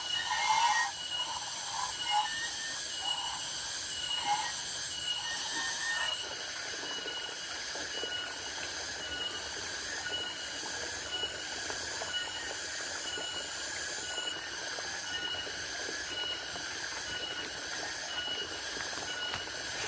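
Chorus of rice-field insects: several high trills layered together, some pulsing rapidly. During the first four seconds a lower call repeats in short bursts.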